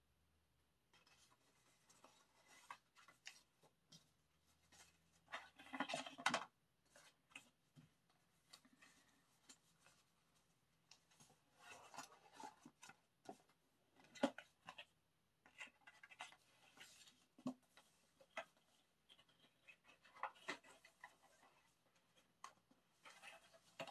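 Quiet rustling and handling of paper and cardboard album packaging (photocards, booklets, a card album case), with scattered light taps and clicks. The loudest rustle comes about six seconds in.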